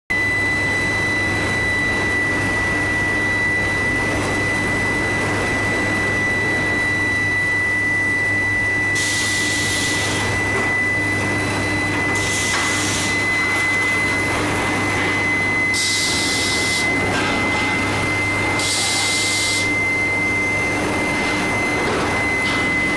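Medium-frequency induction heater running: a steady high whine over electrical hum and machinery noise, with four short bursts of hiss in the second half.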